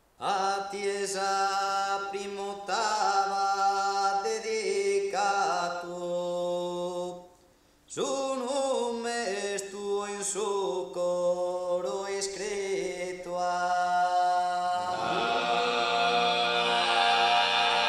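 Sardinian canto a tenore: a male vocal quartet singing unaccompanied, with held chord-like phrases. The voices break off briefly about seven seconds in, then resume, and near the end deep bass voices come in under the lead for the full four-part chord.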